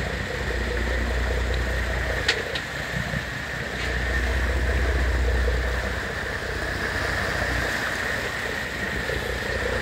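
Sportfishing boat's engines running with propeller wash churning at the stern: a low rumble that swells and eases under a steady rush of water, with one brief click about two seconds in.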